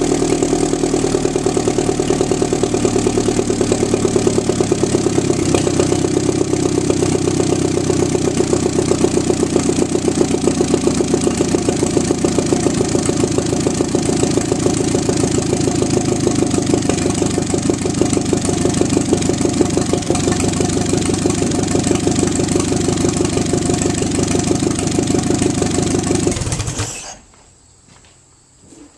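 Allis-Chalmers IB tractor's four-cylinder gasoline engine running steadily, then shut off abruptly about 27 seconds in.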